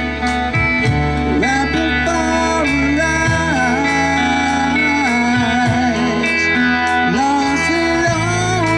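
Live rock band playing through a PA system, with drums, bass guitar and guitars, and a melodic line bending and gliding over a steady bass.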